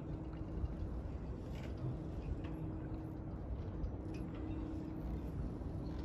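Harbour ambience: a steady low rumble with a machine-like hum that comes and goes every second or so, and a few faint taps.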